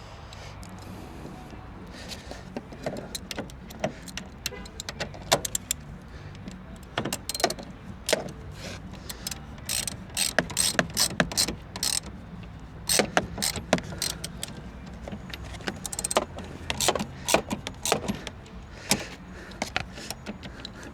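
Hand ratchet wrench clicking in short runs of strokes as a seat belt bolt is driven in and tightened.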